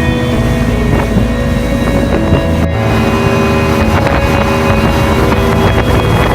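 Motorboat engine running steadily under way, with water noise and wind buffeting the microphone.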